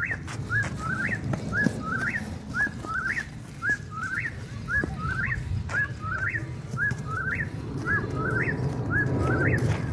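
A bird's short two-note whistled call, the second note sliding upward, repeated steadily about once a second, over a low background rumble.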